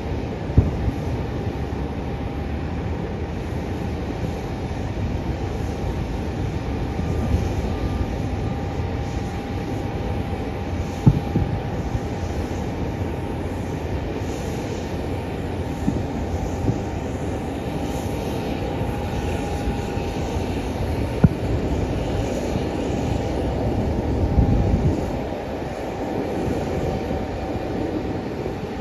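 A steady low rumble of airport ramp noise with a faint steady whine, punctured by a few sharp bangs of distant fireworks, the clearest about 11 seconds and 21 seconds in.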